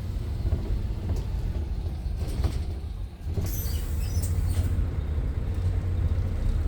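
Bus running: a steady low engine rumble with scattered rattles and clicks.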